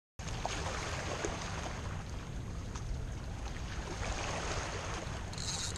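Steady wash of small waves lapping at a rocky mangrove shoreline, with wind noise, cutting in after a split-second dropout at the start.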